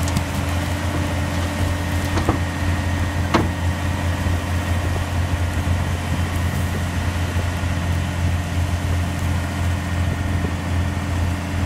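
Scania tipper lorry's diesel engine running steadily with a constant low hum while its raised body tips out a load of muck. Two short sharp knocks about two and three and a half seconds in.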